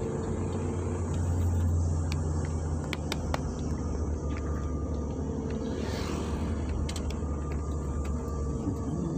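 Steady low drone of a car's engine and tyres on the road, heard from inside the moving car's cabin, with a few faint ticks; the drone eases slightly near the end.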